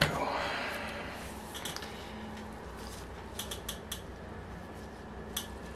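Metal cylinder of an O.S. FF-240 Pegasus model flat-twin engine being worked off its crankcase: a sharp click, then a scrape that fades over about the first second and a half as it slides off. A few light metallic clicks follow as the loose cylinder is handled.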